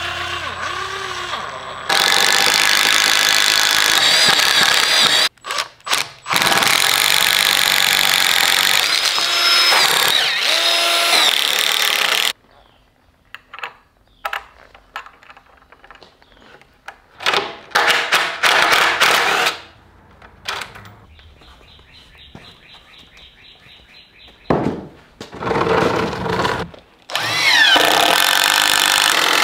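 Cordless drill boring holes through pine 2x4 framing in several long runs, its motor speed rising and falling, with quieter knocks of handling wood and hardware in between and a rapid fine ticking near the middle.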